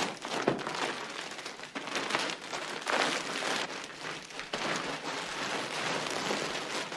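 Clear plastic furniture slipcovers being yanked off an armchair and sofa and bunched up, the plastic crinkling and rustling with several louder swells as each cover is pulled.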